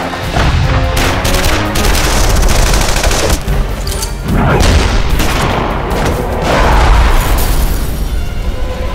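Action-trailer sound mix: dramatic music under bursts of gunfire and booms, with a heavy explosion about seven seconds in.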